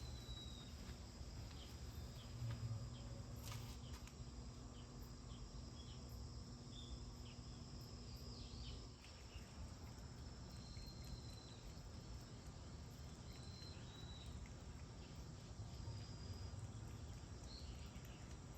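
Faint outdoor ambience of insects chirping steadily, with a few brief high chirps every few seconds and a single sharp click about three and a half seconds in.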